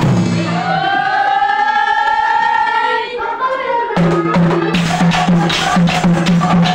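Nagara naam devotional singing: a woman's voice holds one long, rising-then-steady note for about three seconds, then drums come in about four seconds in, beating about three strokes a second over a low steady note.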